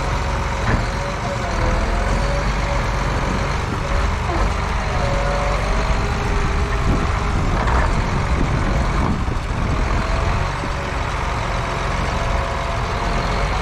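Tractor engine running steadily, with a thin wavering squeal rising and falling now and then above it.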